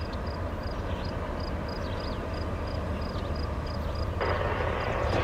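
CSX diesel locomotives hauling a manifest freight train on the approach, a steady low engine rumble. A louder, brighter rushing noise joins about four seconds in as the train draws nearer.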